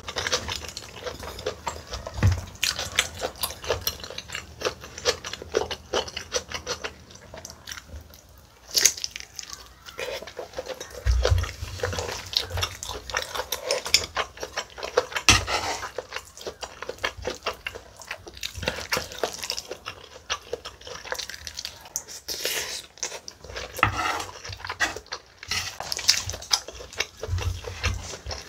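Close-miked chewing of a mouthful of spicy webfoot octopus and rice, with many small wet mouth clicks and smacks. There are occasional clinks of a spoon and chopsticks against the plate.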